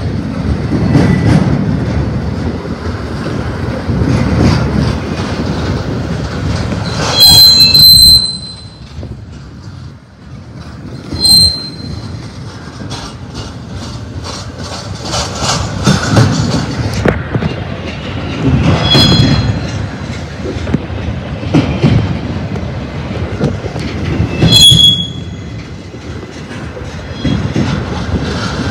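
Double-stack intermodal freight cars rumbling past on the rails, with high-pitched wheel squeals breaking out four times. The longest and loudest squeal comes about seven seconds in.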